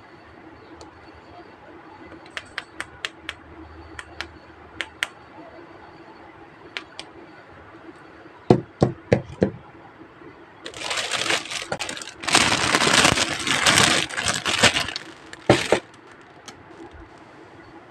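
Small plastic toy pieces clicking and tapping, then a few sharp knocks, followed by about four seconds of plastic packaging crinkling and rustling as a toy is unwrapped, ending with a couple of knocks.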